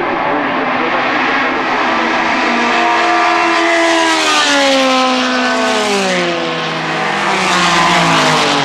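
Two Group C sports-prototype race cars at speed, coming closer and passing by; their engine notes slide steadily down in pitch and the sound is loudest near the end.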